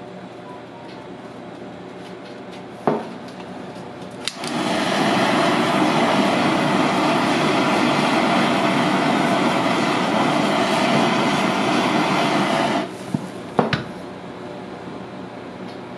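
Handheld kitchen blowtorch flame hissing steadily for about eight seconds while it caramelises the sugar on a crepe, starting with a click about four seconds in and cutting off suddenly. A few knocks follow.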